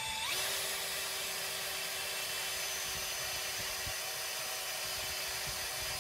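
Electric drill spinning up and then running steadily under load as its bit drills down through a broken-off steel bolt in an engine's cylinder head.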